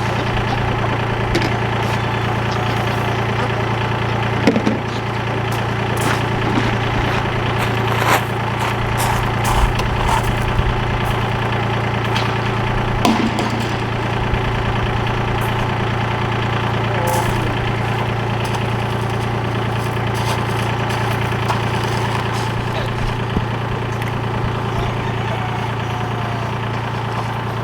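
A motor vehicle's engine idling steadily, with a few short knocks and clicks over it.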